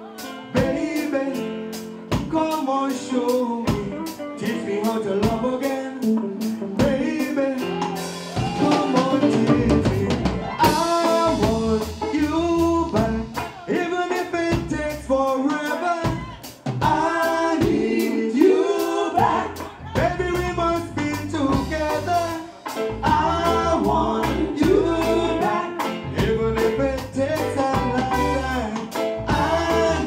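Live band music: a male singer's voice over a drum kit and bass guitar, with a steady beat.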